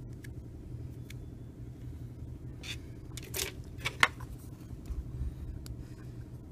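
Light clicks and scrapes as a disassembled smartphone's LCD panel and bare display frame are handled and set down on a table, the sharpest about three and four seconds in, over a steady low hum.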